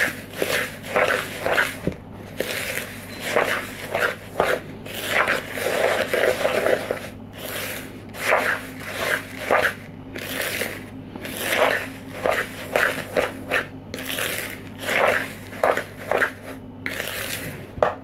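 A utensil stirring and scraping a sticky mix of desiccated coconut, rolled oats, sugar and melted golden syrup in a glass mixing bowl, in repeated strokes about two a second.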